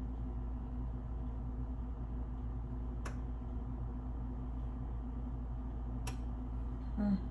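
Steady low hum with two short, sharp clicks about three seconds apart.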